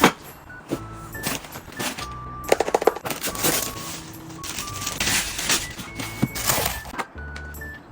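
Camping gear being handled and packed: a run of clicks, knocks and clatter, with a quick rattle about two and a half seconds in and rustling between, over soft background music.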